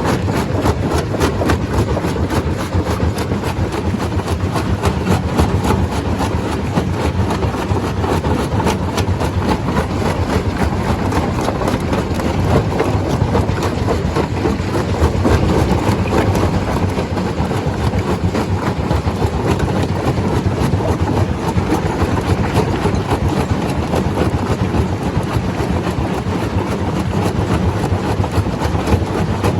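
Stone crusher running under load: a loud, steady mechanical din with a fast continuous rattle of rock being crushed.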